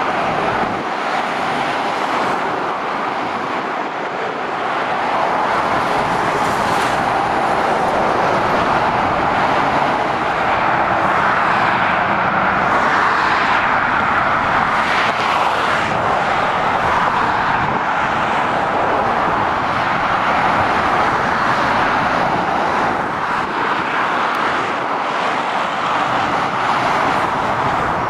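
Steady motorway traffic noise: the tyre rush and engines of lorries and cars passing, a little louder from about five seconds in.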